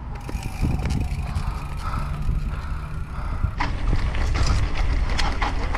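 Mountain bike being ridden over a park path and then a bumpy dirt trail: steady tyre and wind rumble with rattling clicks from the bike over bumps, getting rougher and louder about three and a half seconds in.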